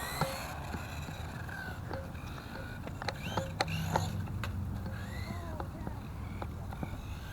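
Electric RC truck driving on skatepark concrete: short motor whines that rise and fall in pitch, with scattered clicks and knocks from the truck on the hard surface.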